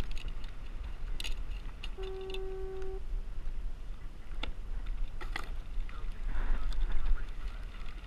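Wind rumbling on the microphone, with scattered light knocks and clicks. About two seconds in, a single steady electronic beep lasts about a second.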